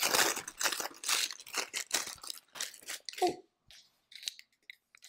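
Packaging crinkling and tearing as a set of wax taper candles is unwrapped, busy for about three seconds, then dying down to a few light clicks.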